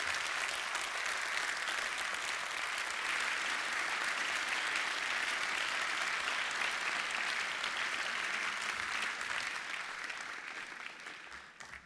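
Large audience applauding a finished speech, steady clapping that thins out and fades near the end.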